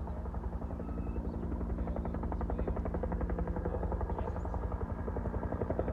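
Helicopter rotor beating in a rapid, steady chop over a low engine hum, getting a little louder.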